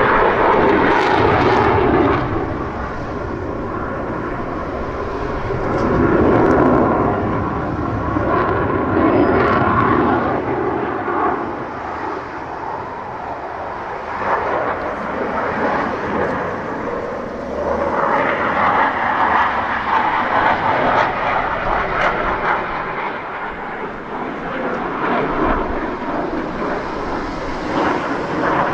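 Saab JAS 39 Gripen single-engine fighter jet flying a display, its jet engine's loud roar and whine swelling and fading several times as it passes and turns.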